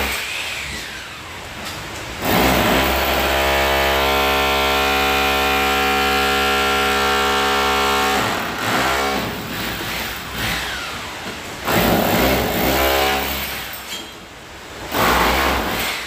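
Electric chipping hammer breaking out a brick wall. It runs in bursts: one steady run of about six seconds, then three shorter bursts.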